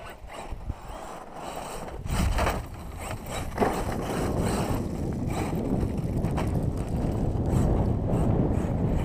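Wind buffeting the microphone, a low rumbling noise that grows stronger after about three and a half seconds, with a few sharp knocks, the sharpest about three and a half seconds in.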